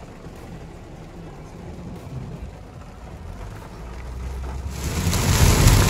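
Low road rumble inside a car cabin driving on a wet road. Near the end it switches suddenly to a much louder, steady noise of heavy rain pounding on the car.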